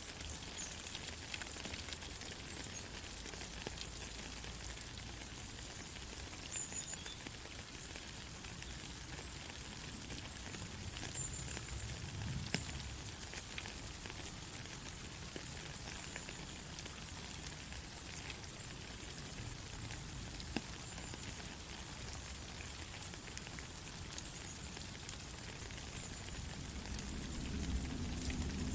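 Steady rain falling, an even hiss with scattered sharper drop ticks. A low rumble builds near the end.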